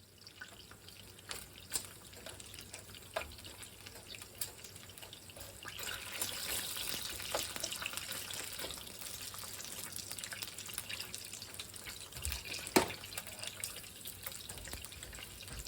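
Frying pan of hot bacon fat sizzling and spattering with irregular small pops, growing louder about six seconds in, with one sharp knock near the end.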